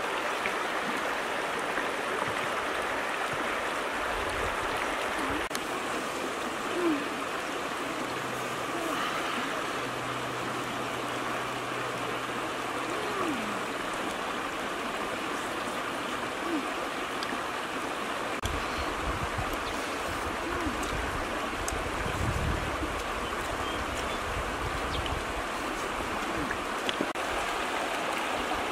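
Shallow river running over stones: a steady rushing of water, with a few faint clicks and some low rumbling in the second half.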